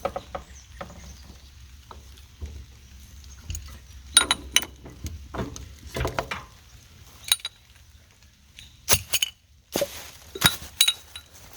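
Metal clinking and knocking against metal: a dozen or so sharp, irregular clinks with a bright ring, bunched in a few clusters, with a faint low hum underneath.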